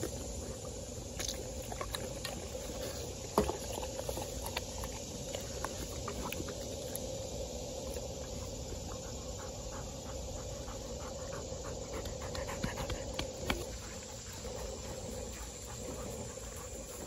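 A dog panting, with scattered small clicks and one sharp click about three and a half seconds in.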